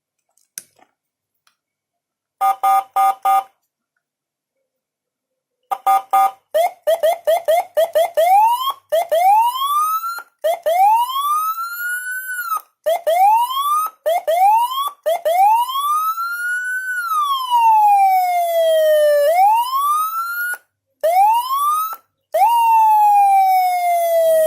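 Electronic siren module sounding through its speaker and stepping through several tones. About two and a half seconds in come four short horn-like blasts. From about six seconds, more blasts run into quick rising chirps, then sweeps that climb and drop back again and again, and near the end a long slow falling tone.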